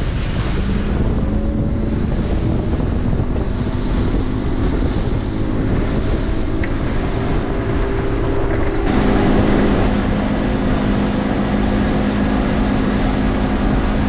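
Evinrude 150 two-stroke outboard driving the skiff at planing speed, its note climbing over the first few seconds, under heavy wind buffeting on the microphone and the rush of the hull over chop. About nine seconds in, the engine note changes abruptly to a steadier, stronger tone.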